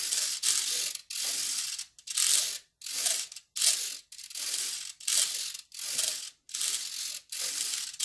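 Ultra-micro linear aileron servos of an E-flite UMX Carbon Cub SS buzzing in about a dozen short bursts, each under a second, as the control surfaces are driven back and forth; the servos move freely without binding.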